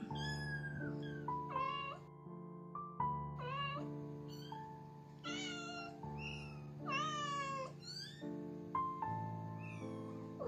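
Kittens meowing repeatedly, about eight short high-pitched cries that bend up and down in pitch, over background piano music.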